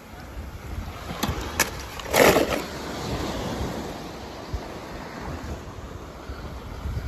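Two light knocks, then a splash about two seconds in as a toy car drops into water, over steady wind noise on the microphone.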